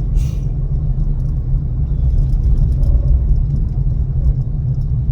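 A steady low rumble with a few faint ticks and a brief hiss near the start.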